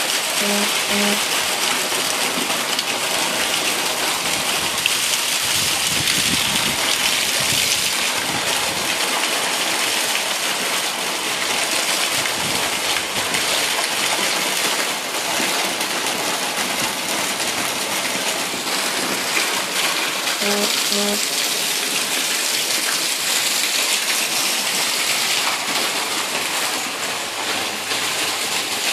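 Heavy monsoon rain falling steadily and loudly, with runoff pouring off the edge of a patio roof.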